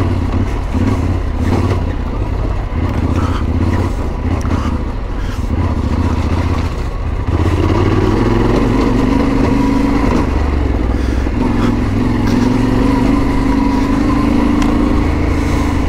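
Yamaha Ténéré 700's parallel-twin engine running as the bike is ridden along, with scattered short knocks. The engine gets louder about seven seconds in.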